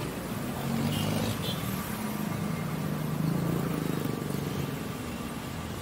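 City road traffic: several vehicle engines running close by over a steady rush of road noise, with engine hum swelling and easing in the middle.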